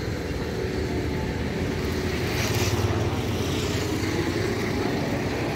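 Steady low outdoor rumble, uneven from moment to moment, with brief swells of hiss about halfway through.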